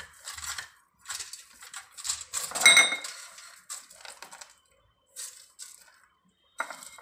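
Foil sheet crinkling and rustling in short bursts as a wooden rolling pin and hands work sesame-jaggery dough and press chopped nuts onto it, with one sharp ringing clink a little under three seconds in.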